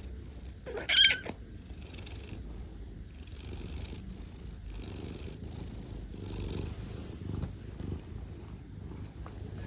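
Orange tabby cat purring, a low steady rumble that swells and fades with its breaths. About a second in, one brief high-pitched squeak stands out above the purr.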